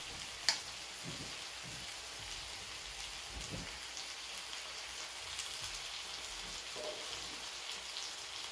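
Marinated pork sizzling on an electric grill plate: a steady crackling hiss, with a sharp click about half a second in.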